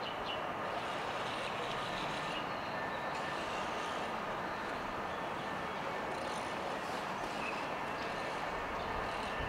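Steady city street noise of passing traffic, an even hum with no single vehicle standing out, and a few faint high chirps over it.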